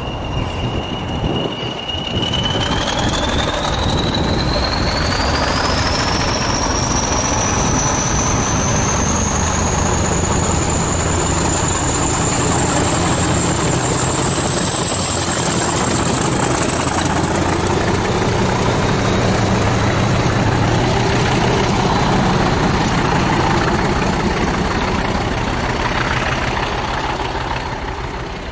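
English Electric Class 40 diesel locomotive D213 passing close by under power. Its 16-cylinder English Electric engine throbs, and over it the turbocharger whistle that gives the class its 'Whistler' nickname rises steadily in pitch for about fifteen seconds and then holds. Near the end the whole sound fades as the locomotive draws away.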